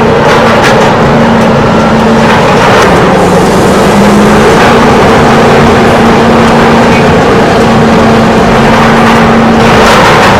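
Steady engine-like running sound with a constant low hum.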